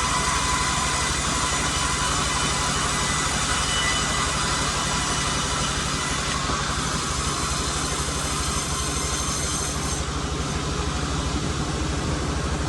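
Sawmill machinery running steadily: an even low engine drone with a dense hiss above it.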